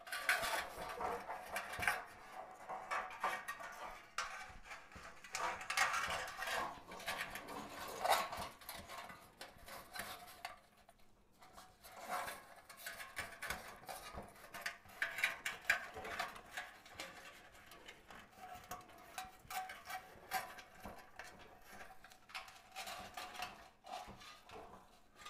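Handling noise from an artificial floral lantern topper being fitted onto a metal lantern: intermittent rustling of artificial pine, berry sprays and ribbon, with small clicks and clinks against the lantern.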